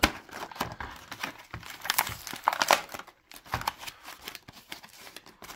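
Thin clear plastic clamshell packaging crinkling and crackling as it is pried open by hand. The crackling is busiest around two seconds in, then thins to scattered light clicks.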